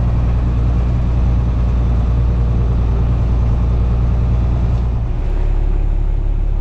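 Fendt Favorit 818 tractor's six-cylinder diesel engine running under load, heard from inside the cab as a steady deep drone. Its low note changes about five seconds in.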